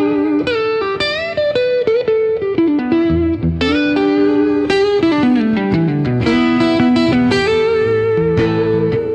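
Background music led by an electric guitar playing a melody with bent notes over a bass line.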